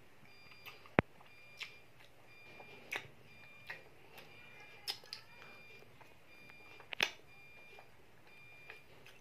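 A child eating chicken satay off wooden skewers: chewing and lip smacks with a series of sharp clicks, the loudest about a second in and another at about seven seconds. A faint, regular tick runs underneath.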